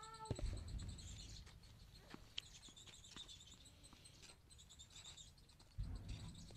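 Faint, rapid high-pitched chirping runs through the background. Two short low rumbles come about half a second in and near the end, and a couple of sharp taps come about two seconds in.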